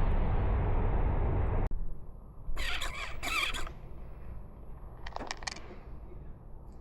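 Newborn kitten mewing: two high, wavering squeals about three seconds in, then a quick run of shorter cries a couple of seconds later. Before them, a steady rushing noise stops abruptly just under two seconds in.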